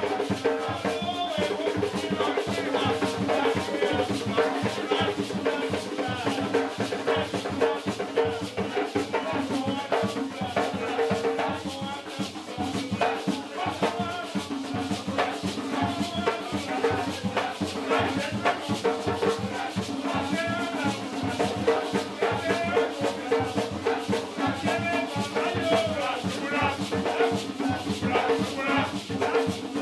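Gwoka played live on ka drums, the boula drums holding a steady rhythm while the makè drum plays improvised strikes over it, under a lead singer's chant and an answering chorus.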